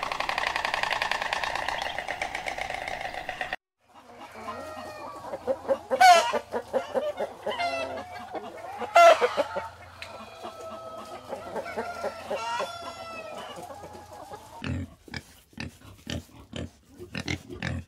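A dense, steady buzzing trill for the first three seconds or so. Then hens and roosters clucking, with two loud, short calls about six and nine seconds in. Near the end, pigs grunting in short bursts.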